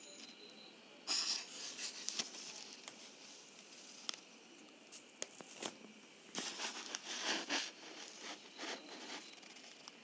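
Plastic crinkling and clicking as a hand handles a plastic bottle and plastic packaging, in short scattered bursts, the longest between about six and eight seconds in.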